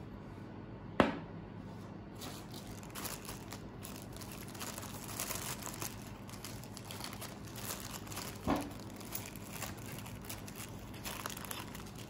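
Small clear plastic parts bag crinkling as it is opened and handled, with two sharp knocks: a loud one about a second in and a smaller one later on.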